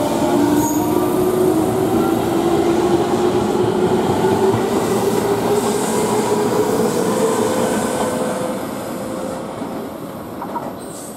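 A JR West electric commuter train accelerating out of a station, its traction motors whining and climbing steadily in pitch over the rumble of wheels on rail. It fades as it draws away over the last few seconds.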